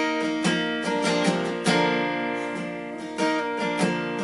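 Acoustic guitar strummed and picked in chords, the notes ringing on between strokes.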